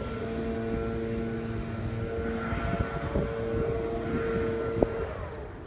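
A steady mechanical hum over a low rumble that cuts off about five seconds in, with a single light click shortly before it stops.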